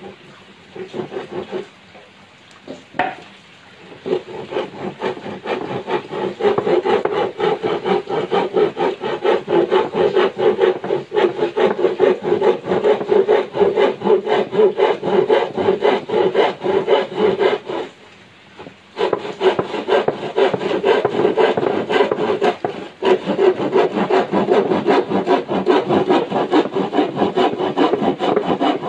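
Hand saw cutting a thin wooden board with rapid back-and-forth strokes. A few short strokes and a knock come first, then steady sawing, broken by a pause of about a second a little past halfway.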